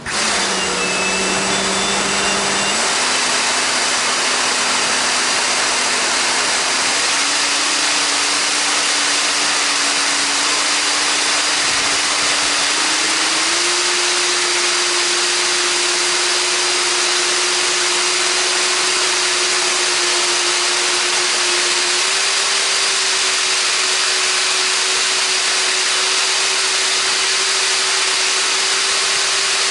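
A 70 mm 12-blade electric ducted fan (EDF) unit running up on a bench power test. It starts suddenly and runs loud, a rushing of air under a whine that steps up in pitch four times as the throttle is raised.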